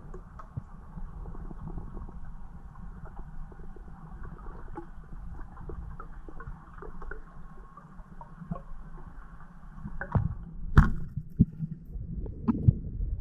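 Muffled underwater sound through a GoPro's waterproof housing: a low steady rush with small scattered clicks, then several loud sharp knocks from about ten seconds in.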